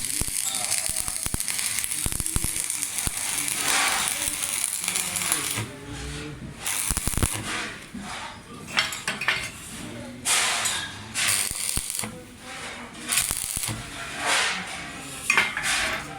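Welding on an iron digging tool: a steady crackling hiss for about the first five and a half seconds, then shorter bursts of welding broken by pauses and light clinks of metal.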